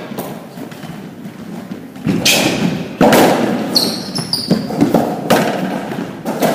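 Racquetball rally in an enclosed court: several sharp, echoing cracks of the hollow rubber ball off the racquets and walls, with a few short sneaker squeaks on the court floor near the middle.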